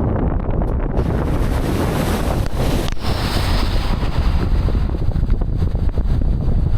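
Ford Raptor pickup driving a rough, wet off-road trail: a steady deep rumble of engine and tyres, with a loud rushing hiss from about one to five seconds in.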